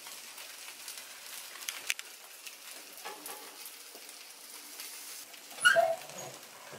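Faint hiss and light taps of dough balls being set on a hot waffle iron's grid plate, with a short, loud squeak near the end.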